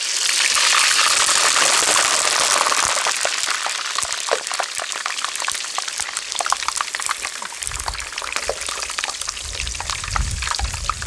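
Hot oil in a wok sizzling loudly as a slab of boiled, still-wet pork belly is lowered in for deep-frying. The sizzle starts suddenly, is loudest for the first few seconds, then settles into steady crackling and popping, with a low rumble joining in over the last few seconds.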